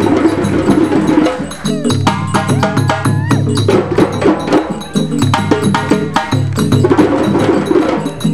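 Percussion-led music: a fast, dense run of hand-drum strokes with a pitched melodic line over them.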